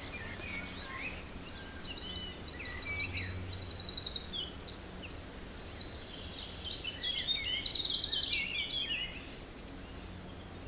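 Songbirds singing and calling: overlapping chirps and rapid trills of repeated high notes, busiest from about two seconds in until they thin out about nine seconds in, over a low steady outdoor background.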